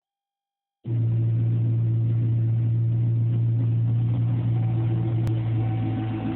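A 1997 Ford Mustang SVT Cobra's 4.6-litre DOHC V8 idling steadily through a Bassani catted X-pipe and Flowmaster mufflers, heard from behind the car at the tailpipes. The sound starts about a second in and stays steady, with no revs.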